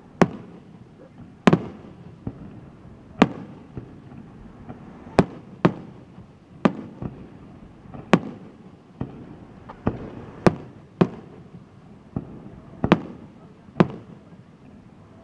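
Aerial firework shells bursting in a steady run of sharp bangs, about one a second and unevenly spaced, some louder and some fainter, each followed by a short echo.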